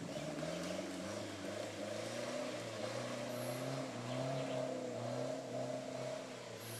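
Off-road four-wheel-drive SUV's engine running under load as it crosses a creek bed and climbs the bank, its revs rising and falling unevenly.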